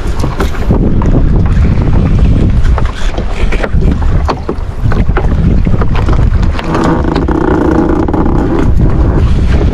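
Wind buffeting the microphone on a small boat at sea, a loud, steady rumble. About seven seconds in, a humming tone rises over it for a couple of seconds.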